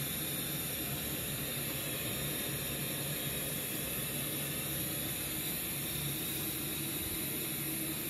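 Gas burner flame hissing steadily under a wok of heating cooking oil, with a faint low hum underneath.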